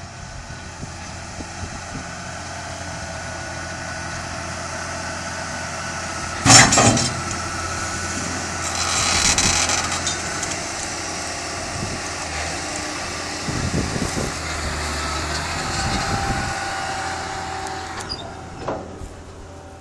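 Case IH Quadtrac 600 tracked tractor's diesel engine running as it pushes earth with a front dozer blade, growing louder as it comes close and fading near the end. A sharp loud bang about six seconds in.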